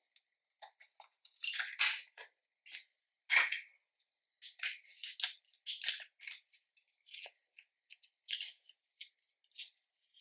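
Store-bought slime being mixed and squeezed by hand, making irregular sticky pops and crackles, with louder squelches about two and three and a half seconds in.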